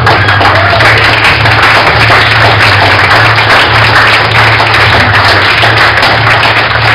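Audience applauding steadily over background music with a low, pulsing beat.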